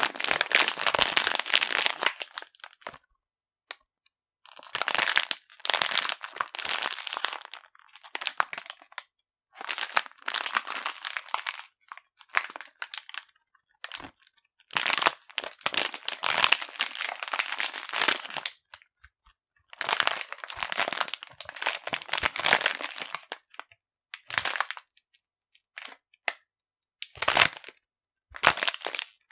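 Crackling, crinkling noise in about ten irregular bursts of one to three seconds each, with short silences between.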